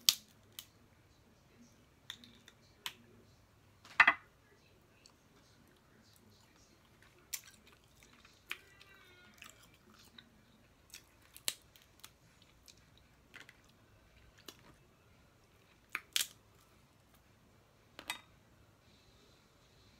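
Snow crab leg shells cracking and snapping as they are eaten, in sharp, scattered cracks. The loudest come right at the start, about four seconds in, and twice near the end, with quieter clicks and chewing between.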